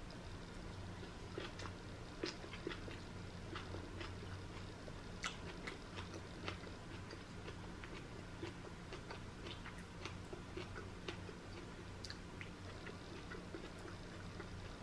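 A person chewing a mouthful of cooked sweet potato leaves: faint, irregular small clicks and smacks, over a steady low hum.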